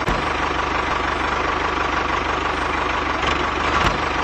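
Tractor engine running steadily at a constant speed, with a fast, even chug underneath.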